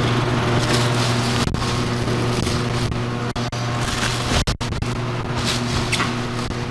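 A steady low machine hum, with crinkling of the plastic and bubble wrap around an exhaust downpipe as it is handled in its cardboard box. The sound cuts out briefly twice.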